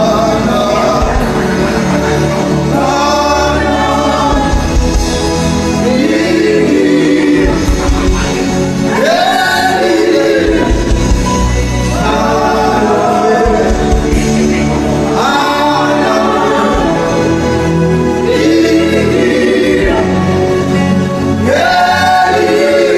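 Gospel worship music: a choir of voices singing long, rising and falling phrases over steady instrumental accompaniment.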